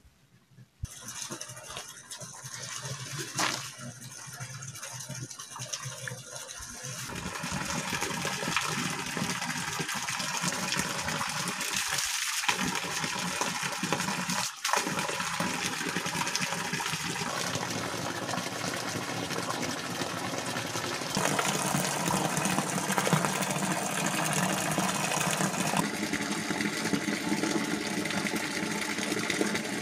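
Water from a free-flowing warm-water borehole gushing in a steady stream from a curved metal pipe and splashing into a stone basin pool. It is faint at first and louder from about seven seconds in.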